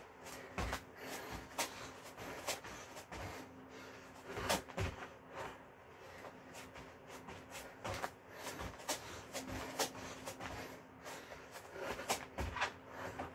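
Sneakers landing on a foam exercise mat during burpees: dull thumps and scuffs each time the feet jump in toward the hands and back out, coming irregularly about once a second or two.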